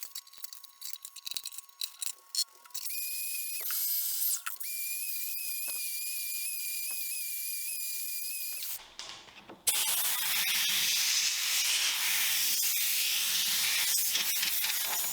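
A workshop power tool running with a steady high-pitched whine in two runs, then a loud, even hiss from about ten seconds in.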